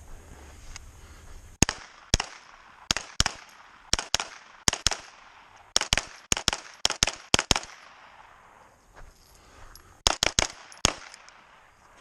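9mm AR pistol with a flash can, fired rapidly: sharp shots in pairs and quick strings, a pause of about two seconds, then a fast burst of about five shots near the end.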